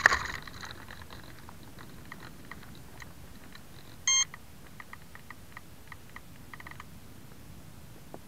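A single short electronic beep about four seconds in, over a faint hiss with scattered small ticks; a brief burst of noise cuts off right at the start.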